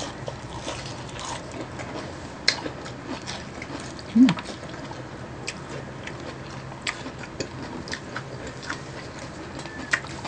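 Close-miked crunching and chewing of crispy breaded fried chicken wings: scattered short crisp crunches and wet mouth sounds. About four seconds in comes a short hum from one of the eaters.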